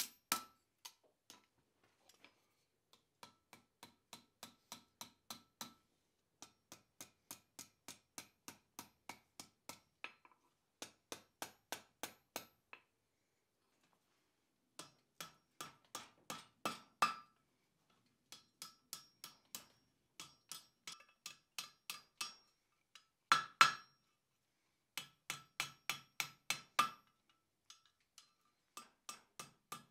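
Blacksmith's hand hammer striking hot steel bar on an anvil while forging a hook, in runs of quick regular blows about three a second with several short pauses. Each blow leaves a clear ringing tone, and a few blows land much harder than the rest.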